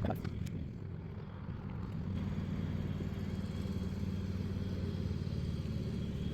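A motor running with a steady low hum that grows louder about two seconds in and then holds even.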